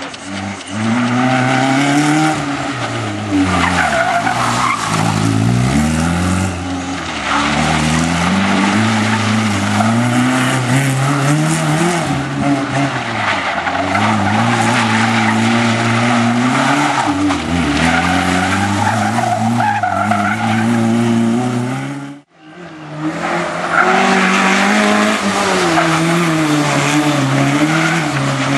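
Opel Corsa rally car driven hard: the engine revs climb and drop repeatedly through quick gear changes, with tyres squealing and skidding through corners. The sound breaks off abruptly about three-quarters of the way through and resumes a moment later.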